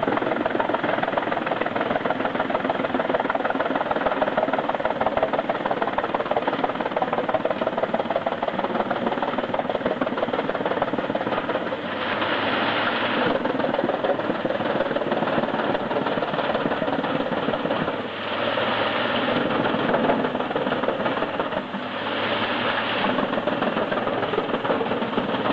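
Heavy wood chipper running at work, its engine and the chipping of wood making a dense, steady noise. A few louder surges come in as wood is fed, about halfway through and again near the end.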